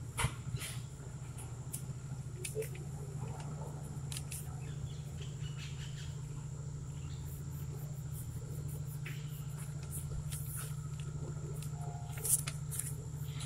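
Steady low hum with a faint high whine, broken by scattered sharp clicks and crackles, the loudest near the start and near the end.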